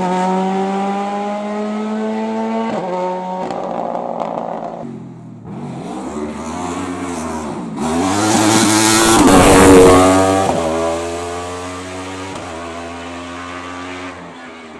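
Hillclimb race car's engine revving hard through upshifts as it climbs, then coming close and passing by loudest about ten seconds in before going away up the road, still shifting up.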